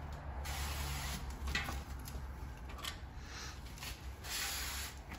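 Window-tint prep on a truck's door glass: several short hissing sprays and rubs of slip solution and a squeegee on the wet glass, the longest about four seconds in, over a steady low hum.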